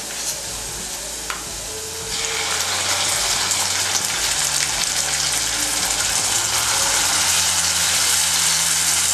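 Marinated chicken leg pieces going into hot oil in a kadhai: after a couple of light clicks, a loud sizzle starts about two seconds in and keeps going as the masala-coated chicken begins to fry.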